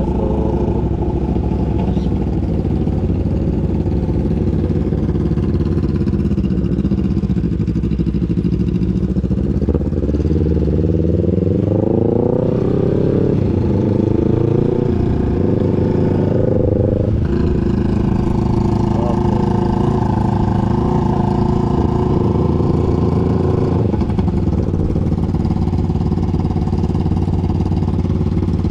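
250 cc parallel-twin sport motorcycle engine running under way, its pitch climbing for a few seconds about ten seconds in and shifting abruptly around seventeen seconds in, then steady again.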